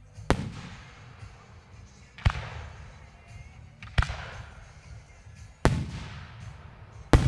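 Aerial fireworks going off: five sharp booms about one and a half to two seconds apart, each trailing off in a rolling echo, the last one the loudest.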